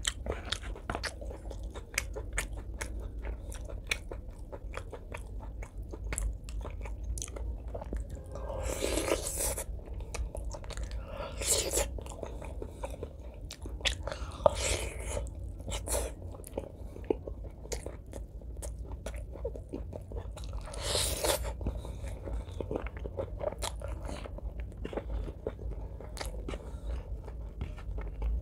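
Close-miked chewing and biting of pork leg curry eaten by hand, with many small wet mouth clicks and smacks. Four louder noisy rushes of about a second each stand out, and there is a steady low hum underneath.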